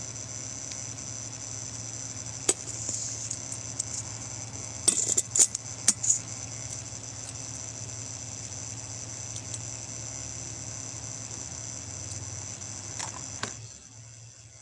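Steady electrical hum with a high-pitched whine over it, broken by a few light clinks of small hard items being handled, most of them in a cluster about five to six seconds in. The hum and whine cut off near the end.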